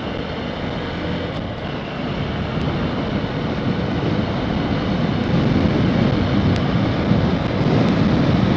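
Wind noise from riding a motorcycle at speed, with the bike's running noise underneath, picked up by a phone's microphone mounted on the rider's helmet. It grows steadily louder from about two seconds in.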